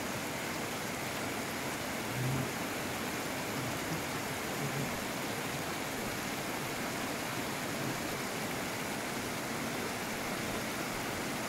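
River water rushing steadily over a low rocky weir, with a brief low bump about two seconds in.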